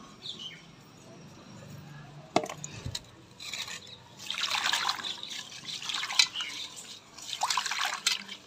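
A hand swishing and rinsing bay leaves in water in a metal pot: splashing that comes in bursts from a little past three seconds in, after a single sharp knock.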